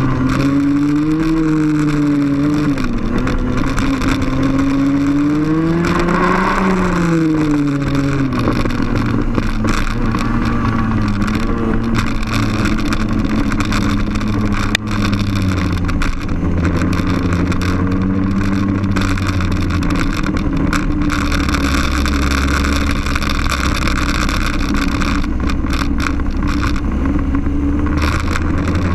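Onboard sound of a TaG racing kart's 125cc two-stroke engine running at racing revs, its pitch rising to a peak about six seconds in and falling as it slows for corners and accelerates out again, over steady noise.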